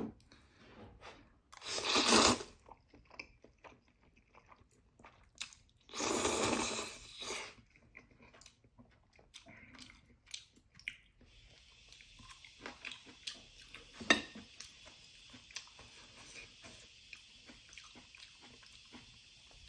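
Close-up eating sounds of black-bean instant noodles: two loud slurps, about 2 and 6 seconds in, then chewing with small wet clicks and chopstick taps. A steady hiss comes in about 11 seconds in.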